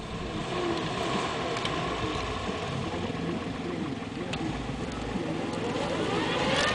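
UAZ off-road vehicle's engine running, its pitch wavering up and down.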